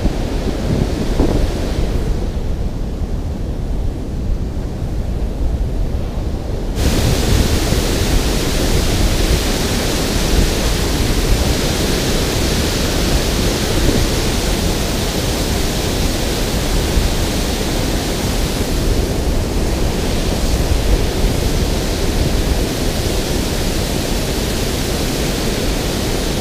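Steady rushing roar of water pouring over a dam spillway, with a heavy low rumble underneath. For a few seconds near the start the hissing upper part of the roar drops out, leaving only the low rumble, and it comes back suddenly about seven seconds in.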